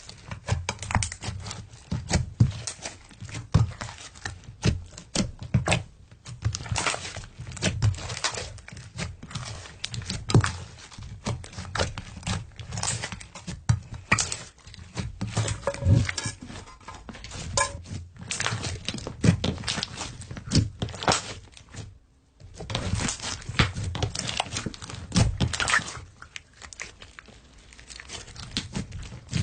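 Slime being squished and poked by hand, making a dense run of small clicks, pops and soft thuds, with one brief pause partway through.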